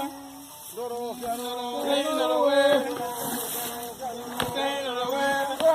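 Rice harvesters singing a work chant together, with long held, sliding notes.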